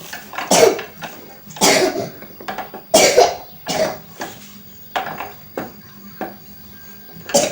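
A series of about ten short, irregular metallic knocks and scrapes from hand tools working on a Yamaha Vixion motorcycle's swingarm during disassembly.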